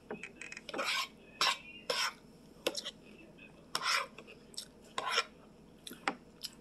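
A spoon scraping and clinking against a plate as it scoops up fried rice: a run of short, irregular scrapes and clicks.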